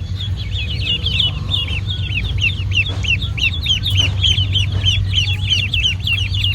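Ducklings peeping continuously: short, high, downward-sliding peeps, several a second and overlapping, over a steady low hum.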